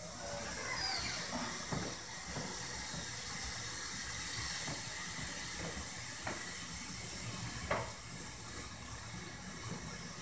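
Several faint knocks and thumps from the upstairs apartment, the loudest near the end, over a steady hiss.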